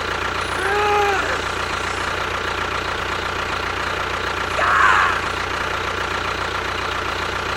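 A small motor or engine running steadily with an even hum. Two short pitched vocal sounds cut through, about a second in and about five seconds in.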